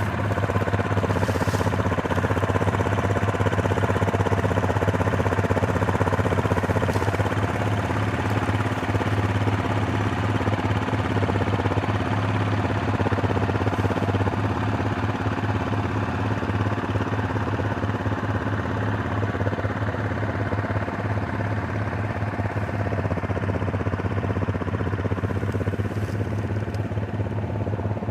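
Four-wheeler (ATV) engine running steadily, with a strong low hum.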